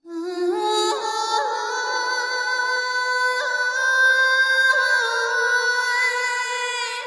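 Music with long, held vocal-like notes, starting suddenly after a moment of silence.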